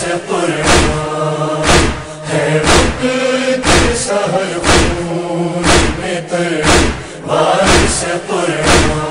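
Instrumental break of an Urdu noha: a backing chorus chants a sustained lament over a heavy thud about once a second, the chest-beating (matam) rhythm that carries the noha.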